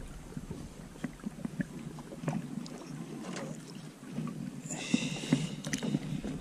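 Small knocks and water lapping against the hull of a small boat rocking at the shore, with a brief higher hiss about five seconds in.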